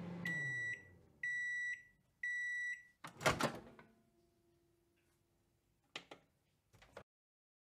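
Microwave oven finishing: its running hum winds down, three beeps about a second apart signal the end of cooking, then the door pops open with a loud clunk. Two small clicks follow near the end.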